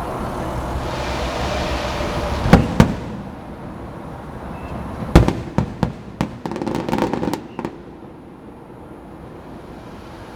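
Fireworks going off: a rushing hiss, then two loud bangs about two and a half seconds in, followed by a quick string of sharp bangs and crackling from about five to seven and a half seconds in.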